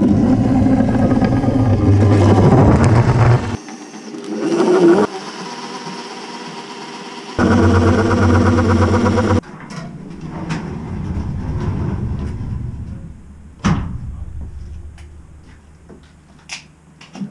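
Power drill motor running in bursts as it turns the threaded spindle of a scissor lift, cut together with other workshop machine sounds; a sharp knock about two-thirds of the way through.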